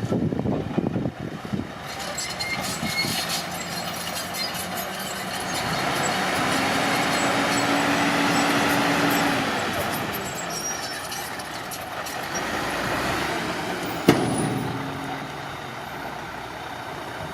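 Heavy earthmoving machinery running at a construction site, its engine noise swelling louder for a few seconds in the middle. One sharp metallic knock comes about fourteen seconds in.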